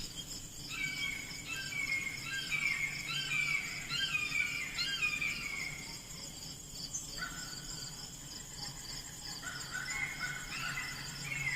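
Insects trill steadily in high-pitched pulsing tones. Over them comes a run of short, descending squealing calls, about two a second, for several seconds, and the calls start up again near the end.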